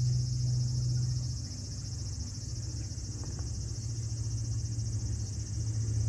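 Night insects trilling without pause in a high, even chorus, over a low steady hum.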